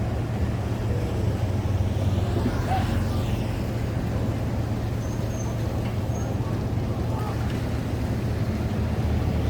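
Steady low drone of motor engines, with faint indistinct voices mixed in.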